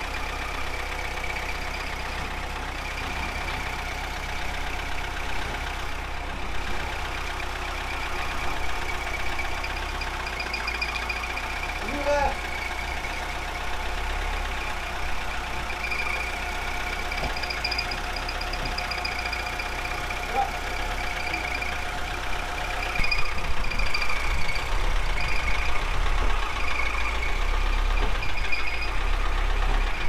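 Lada Niva's engine running at low speed as the car creeps forward, getting louder about three-quarters of the way through.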